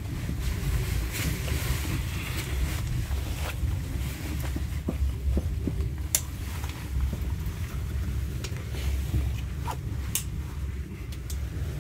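Passenger train running on the rails, heard from inside the coach: a steady low rumble, with a few sharp clicks about six and ten seconds in.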